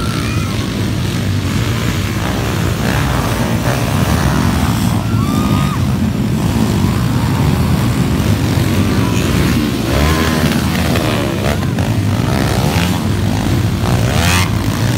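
A pack of underbone motorcycles racing on a dirt motocross track, several engines revving up and down together as they ride past.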